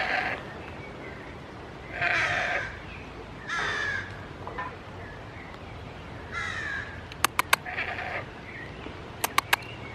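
Short harsh animal calls, about five of them, each about half a second long and spaced a second or two apart. Two quick sets of three sharp clicks, the loudest sounds, come about seven and about nine seconds in.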